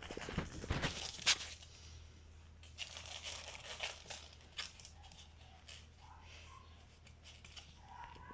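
Quiet rustling and scattered light clicks and scuffs, from Boston terrier puppies moving about on a wooden floor and being handled.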